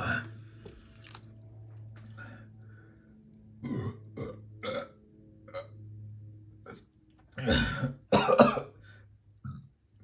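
A man burping twice, loudly, from the carbonation of a just-sipped seltzer water, with a few shorter, quieter sounds a few seconds earlier. A low steady hum runs underneath.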